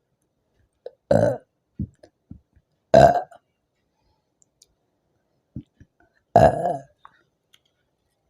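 A woman burping loudly three times after gulping fizzy soda. The burps are short and come a couple of seconds apart, with the last a little longer in coming. Small faint clicks fall between them.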